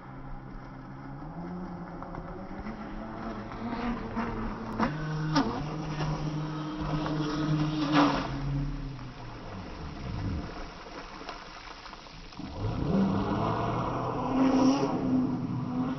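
Vector SR80 Pro RC boat's 2300 kV brushless motor buzzing as it carves turns on the water, deep-pitched and slowed down in slow-motion playback; its pitch falls around ten seconds in and climbs again a little after twelve. Brief sharp splashes of spray around four, five and eight seconds in.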